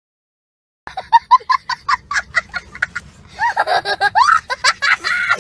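Silent for nearly a second, then a young child laughing hard: quick high-pitched 'ha-ha' bursts about five a second, breaking into longer, higher squeals of laughter in the second half.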